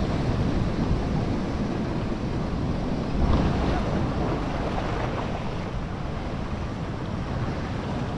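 Sea surf washing against a rocky shore with wind buffeting the microphone, a louder wash of water about three seconds in.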